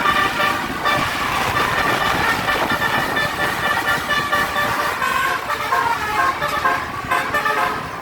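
Bus telolet horn: a multi-tone musical air horn playing a quick run of notes at changing pitches, over and over, with vehicle noise beneath.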